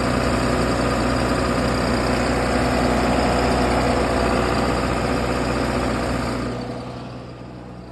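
Generator engine running steadily at constant speed, then fading away after about six and a half seconds. It is running on a bypass, with its fuel solenoid wired in directly and its starter jumped, because its control board has failed.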